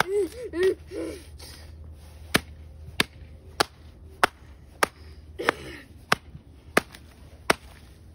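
Hammer blows on a paper workbook lying on brick pavers: a steady run of sharp strikes, about one every 0.6 seconds, starting about two seconds in. A few short vocal sounds come in the first second.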